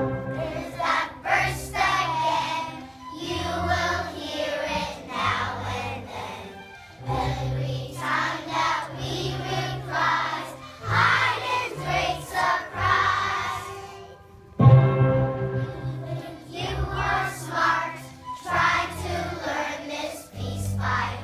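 A children's choir singing a song with instrumental accompaniment that holds steady low bass notes. A loud accented entry comes about fifteen seconds in, just after a short dip.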